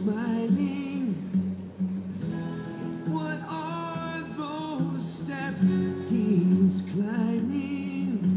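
Music: a song with a singing voice gliding over a steady low tone.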